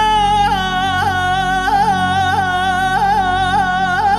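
Male voice singing a Turkish folk song (türkü), holding a long high note that wavers with quick throat ornaments, over bağlama accompaniment.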